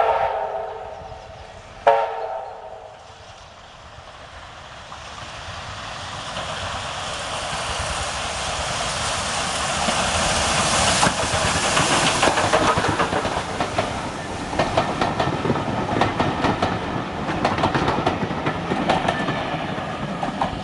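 USATC S160 2-8-0 steam locomotive No. 5197 sounding its whistle, a long blast ending just after the start and a short one about two seconds in. It then draws closer, growing louder as it passes, followed by its coaches clattering over the rail joints.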